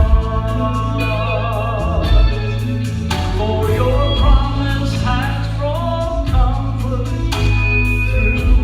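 A vocal quartet singing a gospel-style song with instrumental accompaniment, voices holding notes with vibrato over a steady bass.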